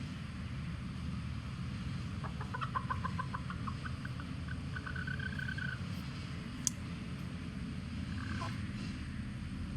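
A chicken giving an alarm cackle, a warning to the flock: a run of quick clucks that ends in a drawn-out squawk, then one short call near the end. A steady low wind rumble runs underneath.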